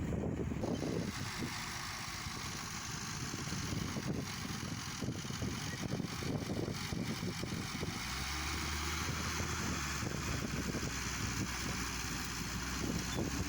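Engine of a homemade rotary tiller running steadily. A low, even hum grows stronger about eight seconds in.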